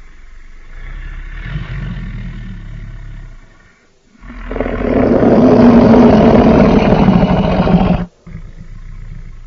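Designed roar of a fictional hybrid dinosaur, built from layered lion, tiger and other animal roars. A rumbling growl comes first. After a brief pause comes a loud roar of nearly four seconds that cuts off abruptly, followed by a softer growl.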